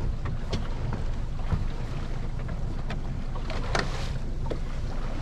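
Small open skiff on the water: a steady low rumble, with about half a dozen light knocks and slaps scattered through it. The loudest knock comes a little under four seconds in.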